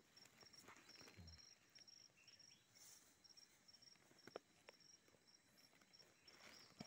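Near silence with an insect chirping faintly in a steady, evenly pulsed rhythm, and a few soft ticks and scrapes as hands work the soil and a stick in the hole.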